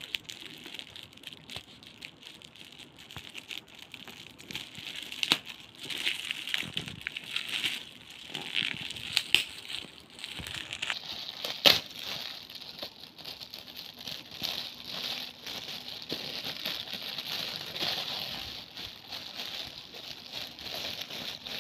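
Shiny metallic foil gift wrap crinkling and crackling as it is pulled open by hand, with frequent sharp crackles and one loud snap a little past halfway.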